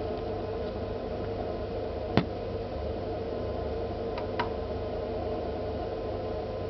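Refrigerator running with a steady hum and fan noise, a noise the owner holds to be abnormal for a fridge. A sharp click sounds about two seconds in, then two lighter ticks close together around four seconds.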